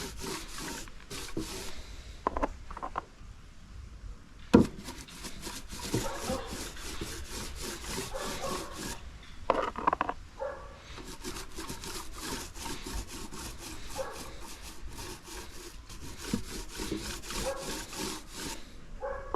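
Brush rubbing resin onto plywood boards in quick back-and-forth scraping strokes, several a second, with one sharp knock about four and a half seconds in.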